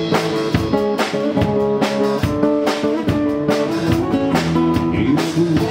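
Live music: a nylon-string acoustic guitar strummed over a drum kit, in an instrumental passage with no singing. Held guitar chords run under regular drum and cymbal strikes.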